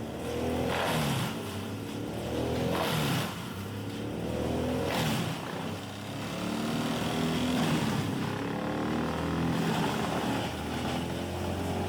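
A large wood chipper's engine running under changing load. Several times, a short burst of crunching, grinding noise comes as wood is fed in and chipped.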